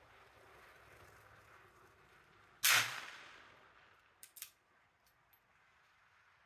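A single shot from a bolt-action .22 LR target pistol, with a short fading echo. About a second and a half later come two or three sharp metallic clicks of the bolt being opened, which cocks the action and pulls out the spent case.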